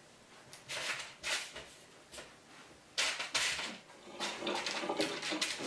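Wooden spoon pressing and scraping a sticky nut-and-coconut mixture across parchment paper on a metal baking sheet: several short scrapes and paper rustles, the loudest about three seconds in.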